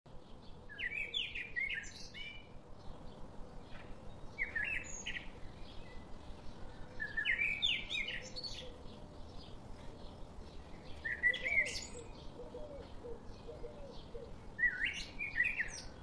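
A bird singing short phrases of several quick high notes, five times at roughly three-second intervals, over a faint steady background hiss.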